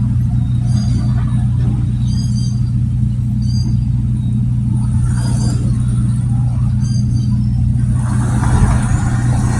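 A motor vehicle's engine running steadily with road rumble, a constant low hum throughout. Faint, short high chirps come at intervals, and a hissing noise swells about eight seconds in.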